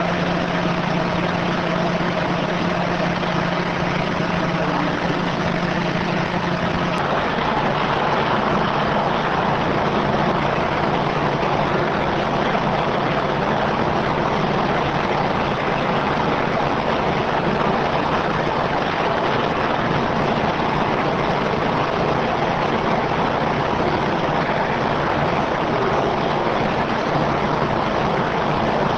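Bulk bag unloader machinery running: a steady, loud mechanical rush of noise. A low steady hum under it drops out about seven seconds in.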